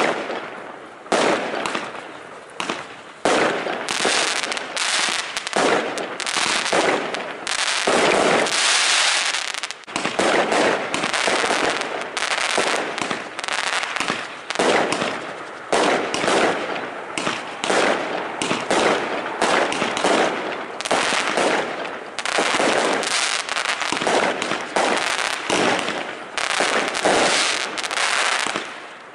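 Aerial firework shells bursting in a rapid, continuous barrage, many sharp bangs a second with hardly a pause between them.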